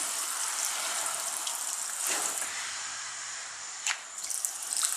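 Water rushing steadily through a washing machine's inlet solenoid valve while it is powered on test from the mains, the valve passing water normally. A brief click about four seconds in.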